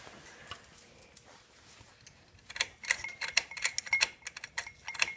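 Faint scattered ticks, then from about halfway in a rapid run of sharp metallic clicks and clinks, many with a short bright ring.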